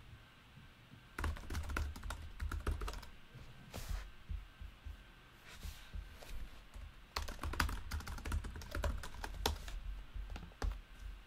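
Typing on a computer keyboard in several bursts of rapid key clicks with short pauses between, each stroke carrying a dull thud.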